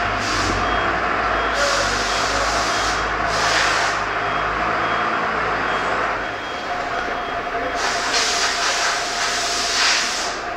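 Diesel engine of a Komatsu FD40T forklift running steadily, with several loud bursts of hiss, the longest about eight seconds in.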